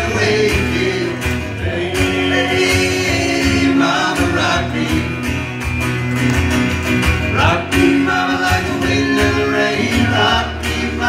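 Live performance of several men singing together in harmony, with acoustic guitar accompaniment.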